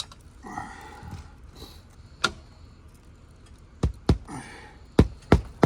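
A few light clicks and a brief rustle, then from about four seconds in a run of sharp knocks on the shingle roof, about three a second.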